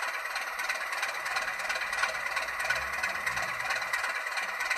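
DCC sound decoder in an N gauge Farish class 37 'Slug' model playing a diesel engine sound through the loco's small speaker, running steadily.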